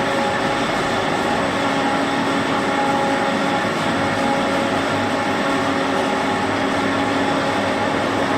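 Multi-spindle high-speed twisting machine running steadily: a continuous, even mechanical rattle and hum with a few steady tones in it.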